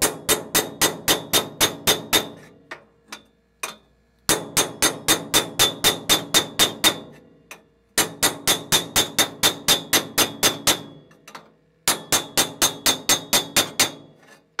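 Hammer tapping quickly on a round steel bar set inside a stainless steel exhaust header primary tube, stretching the cold tube to the shape of the flange's oval port opening. Four runs of sharp metallic strikes, about five a second, with short pauses between runs.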